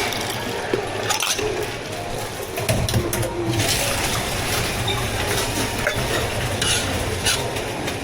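Drink-making sounds at a bubble tea counter: cups and utensils clinking and liquid being poured and stirred. A low hum joins a little under three seconds in.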